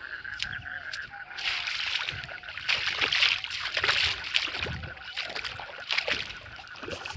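Frogs calling from flooded fields. A steady, high chorus drops away about a second in, then louder, rough calls crowd in for a few seconds and come back briefly near the end.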